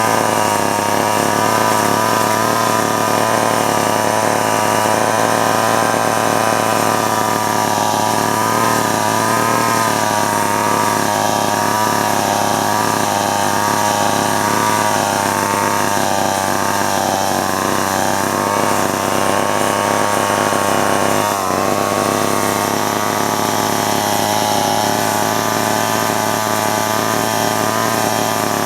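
Vintage Homelite two-stroke chainsaw engine running steadily without cutting, its pitch wavering slightly up and down.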